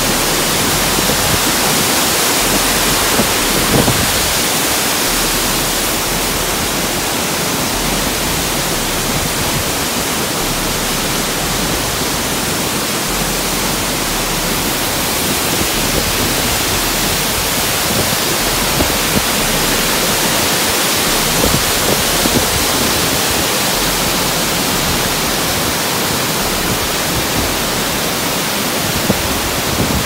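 Steady rush of a waterfall and white water, with a few faint knocks.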